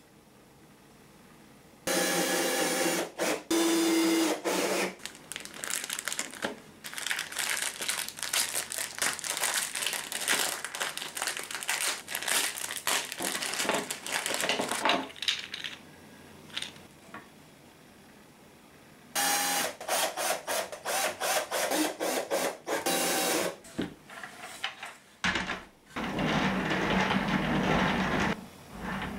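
Assembly work on a pine frame: a cordless drill whirring in short bursts, and long stretches of crackling as a plastic bag of small hardware is handled and opened.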